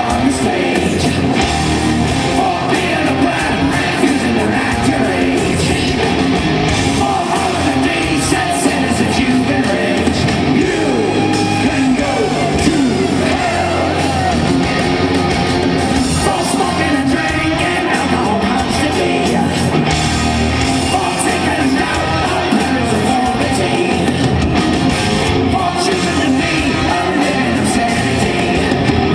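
Hard rock band playing live, with distorted electric guitars, drums and a male lead singer, recorded from the crowd in a large hall.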